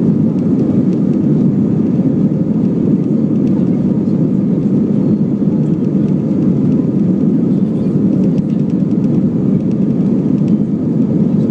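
Steady low rumble inside an Airbus A320 cabin as the jet rolls along the ground: engine noise and wheel rumble heard from a window seat over the wing.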